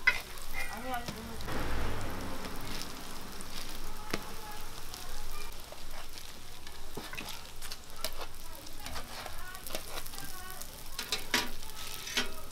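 Sweet pumpkin hotteok frying in oil on a flat griddle, sizzling steadily. Sharp metallic clinks come through it several times as stainless-steel hotteok presses are set down on and lifted off the griddle, one right at the start and a few close together near the end.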